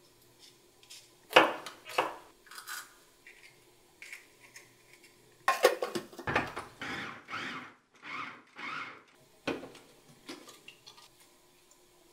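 Kitchen prep sounds: a couple of sharp knocks on a wooden cutting board, then a run of short rasping bursts, about two a second, as a glass-bowl food chopper works through chillies and onion.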